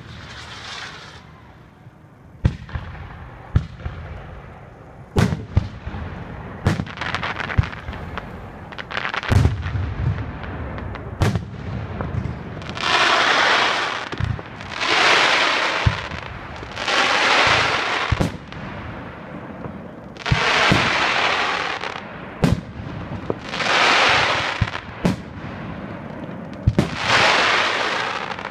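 Aerial fireworks going off: a string of sharp bangs from shells bursting. From about halfway, longer hissing bursts about a second long come every two to three seconds between the bangs.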